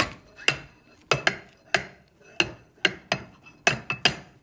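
Ball bearing insert being worked by hand into the loading slots of a mounted bearing's pillow block housing: about a dozen sharp metal-on-metal clacks, irregular at roughly three a second, each with a short ring.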